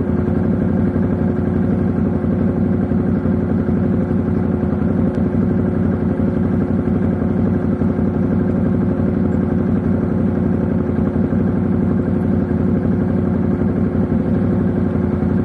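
Motorcycle engine running steadily as the bike is ridden slowly over a rough, stony track.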